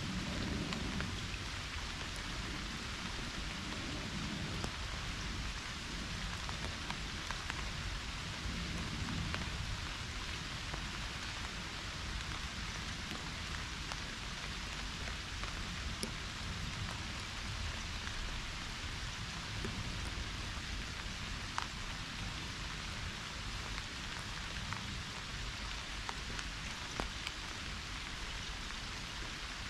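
Pouring rain: a steady hiss of falling drops, with scattered sharper drop hits.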